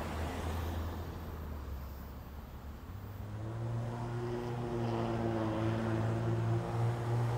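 Road traffic over a railroad crossing: a low hum from a car moving away, then a minivan's engine and tyres growing louder as it approaches across the tracks from about three seconds in.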